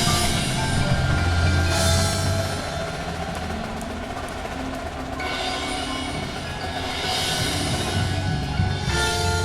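Percussion music: xylophone notes over a bass drum, with snare drum rolls swelling in and out.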